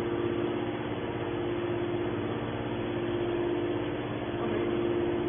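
Hydraulic scrap metal baler running with a steady machine hum and a constant mid-pitched drone.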